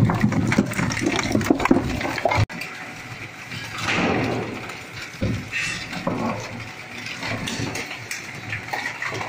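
A 20 HP multipurpose shredder chewing polyethylene drum pieces: a dense run of irregular cracks and crunches as the plastic is cut. It is loud for the first couple of seconds, then drops suddenly to quieter, sparser crunching.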